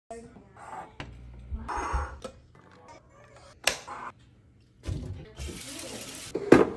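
Food containers and packaging being handled and set down while restocking a fridge: irregular clicks, taps and rustling, a short hiss a little past halfway, and a sharp knock near the end.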